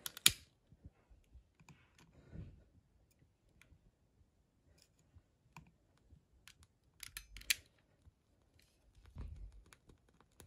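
Faint, scattered clicks and light handling knocks from a long-nosed utility lighter being worked to light a candle, with a quick cluster of sharp clicks about seven seconds in.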